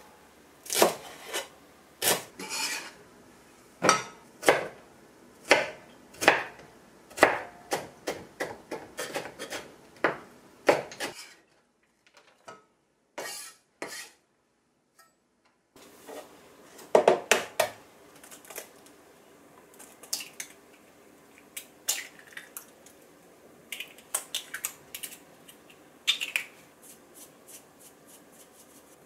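Chef's knife chopping green onion and carrot on a wooden cutting board, the blade knocking on the board a couple of times a second and then quickening into rapid mincing. After a few seconds of near silence, lighter scattered knocks and taps follow.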